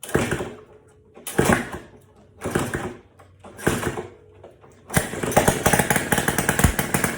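A 1965 Honda S65's small single-cylinder engine gives four short bursts about a second apart as it is turned over. About five seconds in it catches and runs steadily with a rapid popping exhaust.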